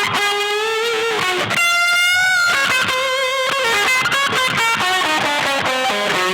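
Electric guitar played through EarthQuaker Devices effects pedals: quick single-note lead lines, with one note held and shaken with wide vibrato about two seconds in.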